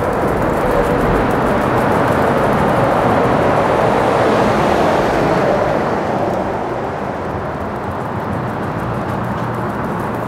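Tractor-trailer truck passing close by on the street. Its engine and tyre noise swells, is loudest about halfway through, then fades as it moves away.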